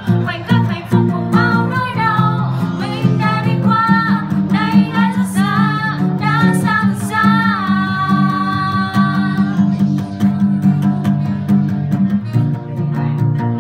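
Acoustic guitar strummed and picked by hand, accompanying a voice singing a Vietnamese song. The voice holds one long wavering note past the middle, then stops for the last few seconds while the guitar plays on.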